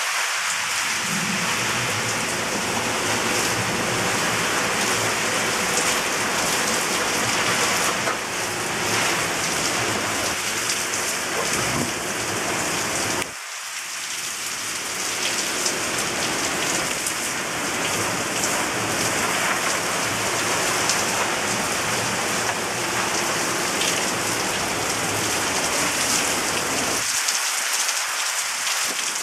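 Torrential thunderstorm rain pouring down in a dense, steady hiss, with a low rumble underneath for most of the time that drops away near the end.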